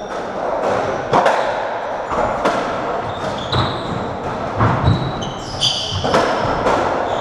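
Racketball rally on a squash court: the ball struck by rackets and smacking off the walls and floor, a sharp echoing impact every second or so, with a few short high squeaks in the middle.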